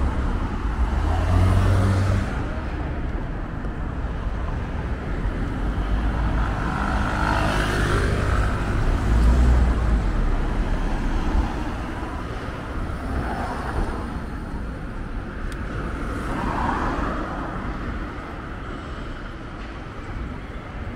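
City street traffic: cars and other road vehicles running past with a low rumble, one louder pass near the middle.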